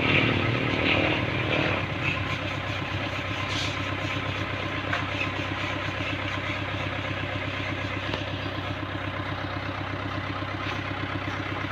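A small engine idling steadily, an even low hum without revving.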